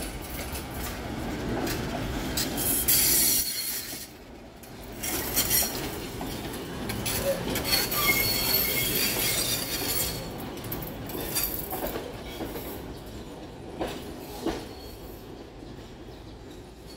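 Tram passing close on curved track, its steel wheels squealing against the rails. The high screech peaks about three seconds in and again from about seven to ten seconds, over the rumble of the wheels, with a few clacks near the end as it moves off and fades.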